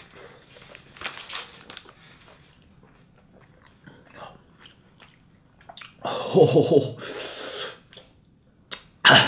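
A man chewing a mouthful of very spicy noodles with faint mouth and breath noises, then, about six seconds in, a strained throaty vocal sound and a long hissing breath out, and a sharp cough just before the end. These are his reaction to the chili burn in his throat.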